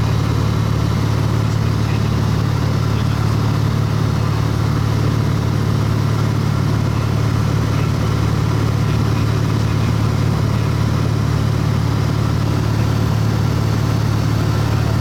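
A small plane's piston engine and propeller running at a steady drone, heard from inside the cabin.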